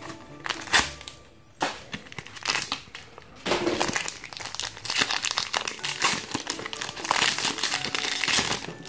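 Foil wrapper of a Pokémon Lost Thunder booster pack crinkling as it is handled and opened, in short bursts at first, then a near-continuous crinkle through the second half.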